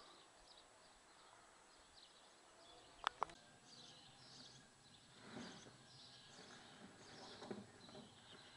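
Near silence: faint outdoor ambience with scattered distant bird chirps, and two short clicks close together about three seconds in.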